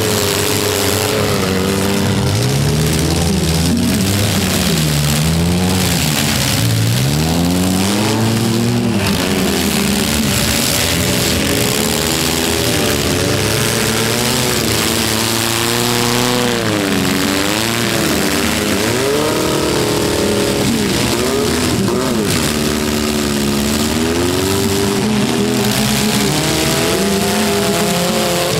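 Several four-cylinder demolition derby cars' engines running at once, repeatedly revving up and dropping back, their pitches overlapping.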